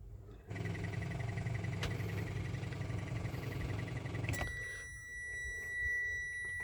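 Mitsubishi Xpander's electronic warning chime in a car whose engine won't start: a rapid beeping over a low hum, which gives way about four seconds in to a steady, continuous high beep.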